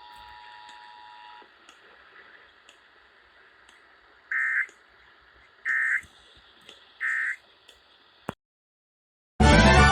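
Emergency Alert System two-tone attention signal that stops about a second and a half in, followed by three short digital SAME end-of-message bursts a little over a second apart. A click, a moment of silence, then loud music begins near the end.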